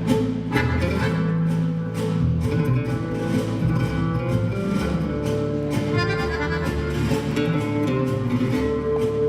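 Guitar-led dance music with a steady beat.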